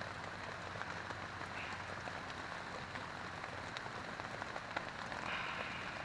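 Steady rain falling on a tent: an even hiss with scattered taps of single drops.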